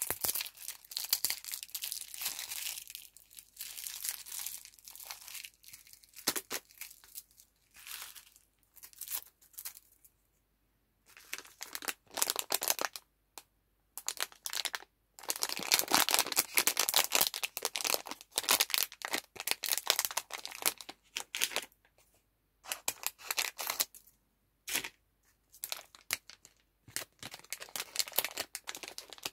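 Plastic lollipop wrappers being peeled and torn open by hand: irregular crinkling and crackling, with a short pause about a third of the way in and the loudest, densest crinkling just past halfway.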